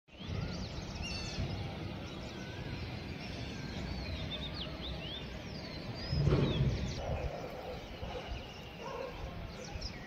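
Several small birds chirping and calling over a steady outdoor background noise, with a brief louder low rush about six seconds in.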